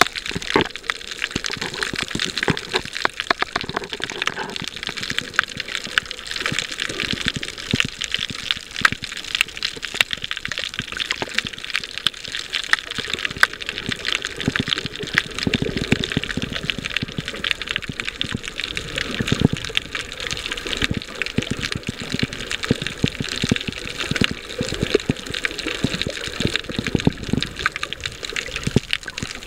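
Underwater sound picked up by a snorkeler's camera: a steady rush of water thick with small crackling clicks.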